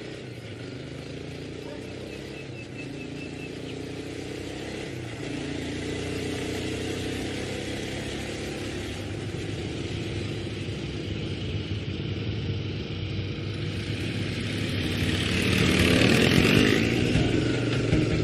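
A motor vehicle's engine running, growing steadily louder and loudest near the end.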